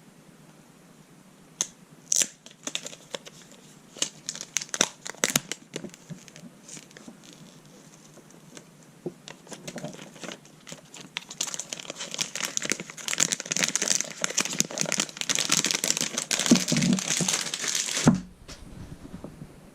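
Clear plastic wrap being torn off a new phone box and crumpled: scattered crinkles and rips at first, then several seconds of dense crinkling that stops suddenly near the end.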